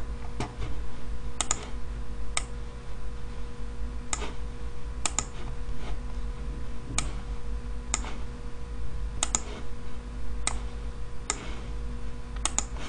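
Clicking of a computer mouse and keyboard at irregular intervals of about a second, some clicks in quick pairs. A steady low electrical hum runs underneath.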